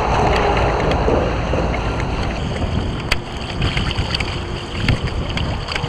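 Wind buffeting the microphone and choppy bay water lapping against a fishing kayak's hull, a steady rushing noise.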